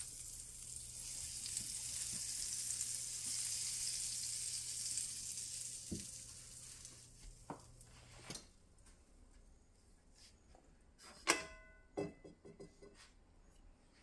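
Butter sizzling as it melts and foams in a hot nonstick frying pan, loudest early and fading away over several seconds. A few clicks follow as a stove knob is turned. Near the end come a sharp clink with a short ring and several lighter knocks from kitchen utensils.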